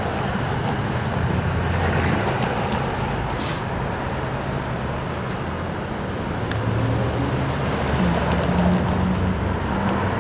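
Union Pacific freight train rolling past: a steady rumble of wheels on rail with a low engine hum underneath.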